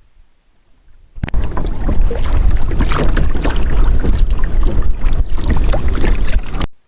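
Loud rushing noise of wind buffeting the microphone, mixed with water sloshing around a kayak. It starts abruptly about a second in and cuts off suddenly just before the end.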